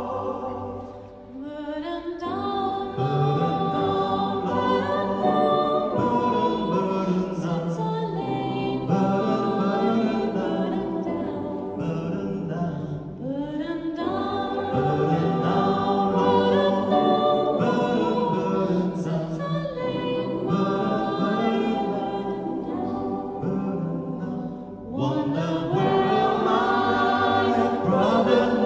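Mixed choir of men's and women's voices singing a gospel spiritual a cappella in a reverberant church, in long sustained phrases with brief breaks about every twelve seconds.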